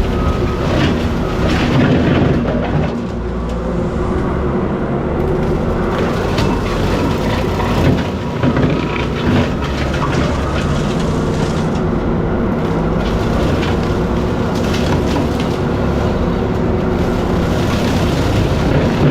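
Bobcat T66 compact track loader's diesel engine running hard with its heavy-duty brush cutter spinning, mowing through brush, with scattered cracks and knocks from cut stems and branches.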